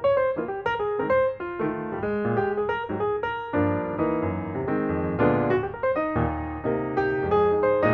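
Background piano music: a continuous run of quick notes over chords.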